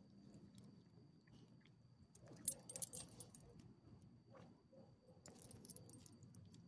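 Metal ID tags on a small dog's collar jingling as the dog moves, in two short bursts: the louder one about two and a half seconds in, the other a little past five seconds.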